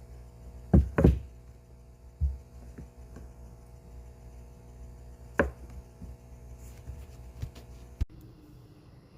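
A few sharp knocks and taps of hard objects being set down or handled, the two loudest close together about a second in, over a steady low hum; the background changes abruptly near the end.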